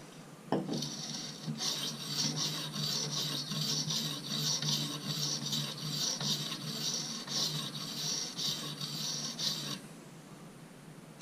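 A medium-coarse 50/40-micron sharpening stone on a TSProf guided knife sharpener scraping along a pocket knife blade in quick, even strokes, about two a second. This is the coarse stage, setting a 20-degree edge. A single knock comes about half a second in, and the strokes stop near the end.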